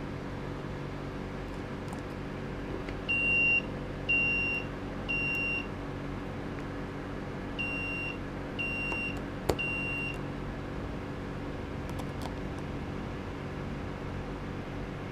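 Two sets of three short electronic beeps, all at one pitch, about one a second, with a sharp click during the second set, over a steady electrical hum.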